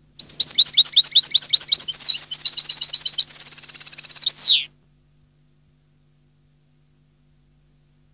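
European goldfinch singing one rapid song phrase of twittering notes, about four and a half seconds long, which ends in a high buzzy trill and a single falling note.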